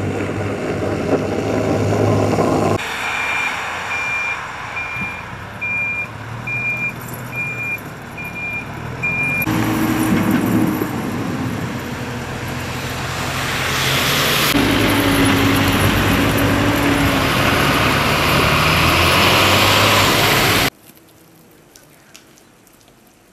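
Diesel engines of snow-clearing machines, a road grader and a backhoe loader, running under load as they push snow. A reversing alarm beeps about once a second for several seconds. The machine noise cuts off suddenly near the end, leaving a low background.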